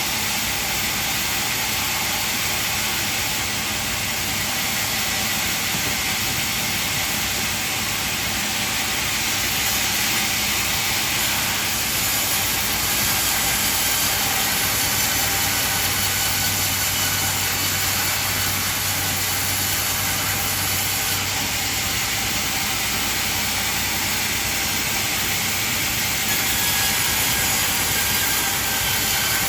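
Sawmill machine running steadily: a continuous engine hum under a strong, even hiss with no breaks.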